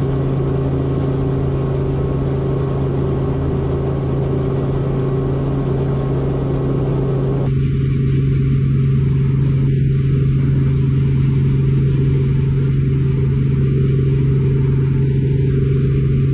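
Helicopter engine and rotor heard from inside the cockpit: a steady, unbroken low drone with a noisy wash over it, as the machine hovers and is eased forward and back. The sound's upper part shifts about halfway through.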